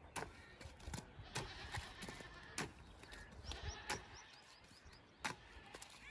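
Irregular sharp knocks of a hoe chopping into and turning wet brick clay. About three and a half seconds in, a bird chirps a quick run of short rising notes, with animal bleating in the background.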